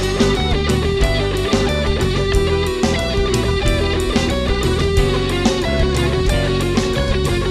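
Instrumental stretch of a rock song: electric guitars over a steady drum-kit beat.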